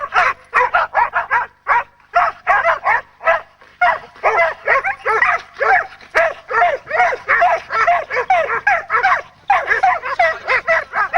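Dogs yelping and whining excitedly in a rapid, unbroken run of high-pitched yips, about four a second, each rising and falling in pitch, with only brief pauses.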